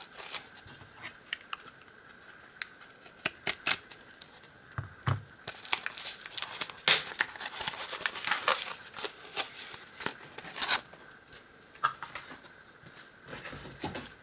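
Heavily wrapped parcel being cut and pulled open by hand: packing material tearing and crinkling in irregular sharp crackles and snips, thickest through the middle stretch.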